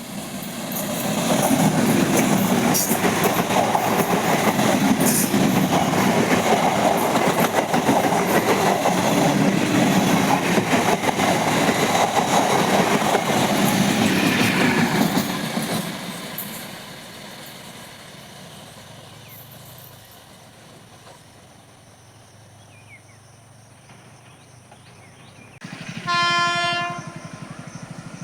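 An Indian train passes close by for about fifteen seconds: a loud rumble with wheels clattering over rail joints, fading away after it has gone. About 26 seconds in, a train horn sounds once, a short single-toned blast.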